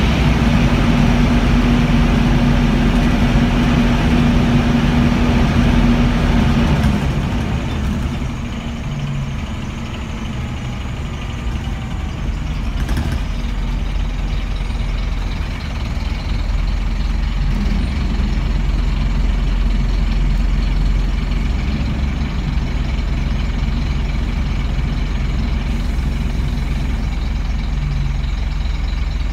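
Scania N230UB bus engine running, heard from inside the saloon. The sound is louder for the first seven seconds or so, then drops and runs on more quietly.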